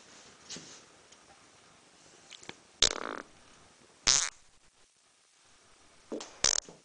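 Four short fart sounds: one about three seconds in, another a second later, and a quick pair near the end.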